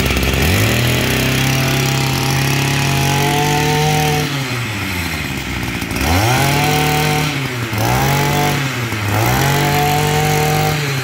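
Small 22cc two-stroke brush cutter engine, just pull-started, running with the throttle squeezed and released. It revs up and holds about four times, each time dropping back before the next rev.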